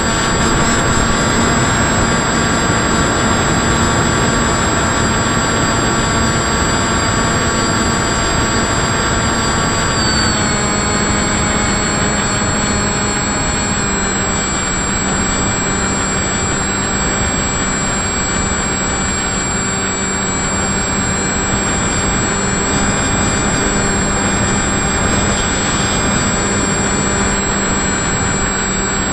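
Electric motors and propellers of an FPV model aircraft running in flight, a steady whine over rushing air noise. The pitch steps down about ten seconds in and holds lower.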